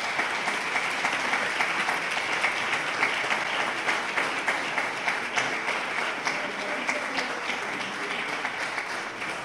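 Audience applauding, many hands clapping steadily, easing off slightly near the end.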